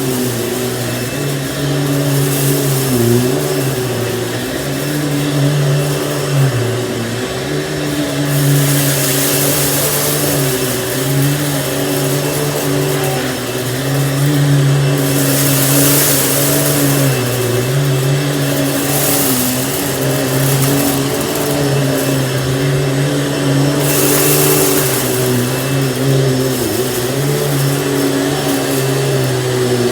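Panasonic upright vacuum cleaner running with a steady motor hum whose pitch dips briefly every few seconds. A hissing rush of air swells three times, roughly a third, half and four-fifths of the way through.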